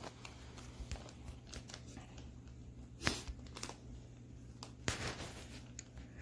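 Plastic fish-shipping bag crinkling and rustling as it is handled, with two louder crackles about three and five seconds in.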